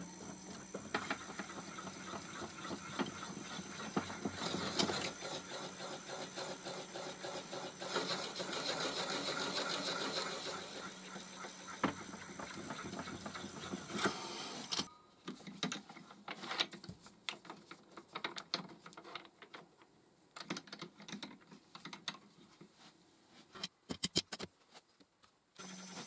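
Wood lathe motor running with a steady high whine and low hum while a barrel trimmer cuts the end of a walnut pen blank, the cutting rougher for several seconds in the middle. The lathe is switched off about 15 s in, followed by scattered quiet clicks and knocks of handling, and it starts up again just before the end.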